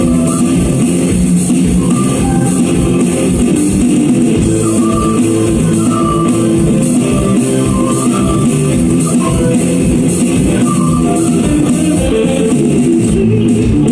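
Loud live band music: electric guitar, bass guitar and keyboards playing together.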